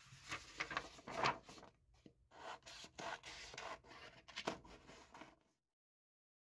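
Quick scratchy rubbing strokes like a pen scribbling on paper, in an irregular run that stops about five and a half seconds in.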